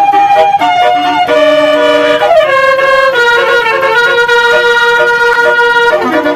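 Basuri 'telolet' multi-tone bus horn playing a tune as a string of held notes that step in pitch, with a sliding note about two and a half seconds in, one long steady note after it, and a falling slide near the end.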